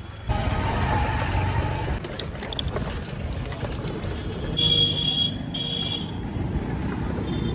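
Steady low rumble of a ride along a busy town street, road and traffic noise, with two short high-pitched beeps about five seconds in.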